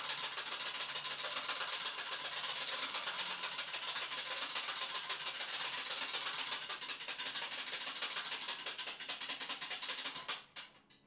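Hand-crank winch of an UP Cargo lift trolley being turned steadily, giving a rapid, even clicking as the load platform is raised; it stops abruptly about ten seconds in.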